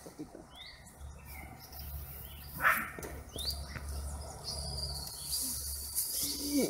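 A few short, high rising chirps and a thin steady high tone from small animals over a quiet outdoor background with a low rumble, then a brief falling cry near the end.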